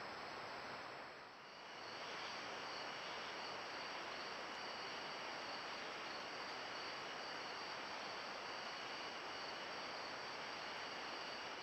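Crickets trilling steadily in two high, even tones over the constant hiss of a trail camera's microphone, with a brief dip in loudness about a second in.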